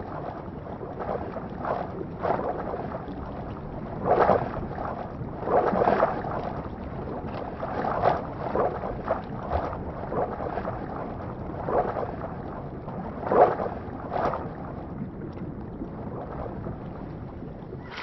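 Water bubbling and sloshing: irregular louder surges every second or two over a steady rushing noise.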